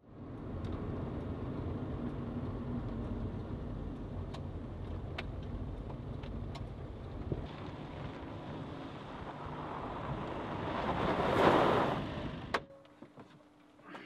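Old car's engine running with tyres on gravel and scattered clicks, growing louder to a peak as the car comes close, then cutting off suddenly with a sharp click.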